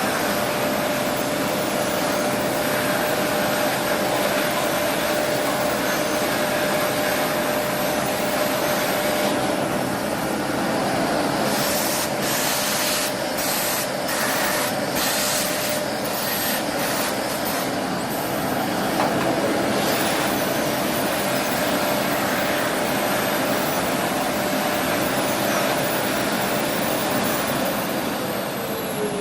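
Aspiron canister vacuum cleaner running with a steady rushing whine, with a stretch of choppy hissing in the middle. Near the end the whine drops in pitch as the motor is switched off and winds down.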